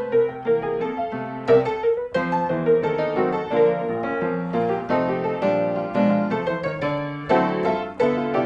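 Background piano music: a light melody of quick notes.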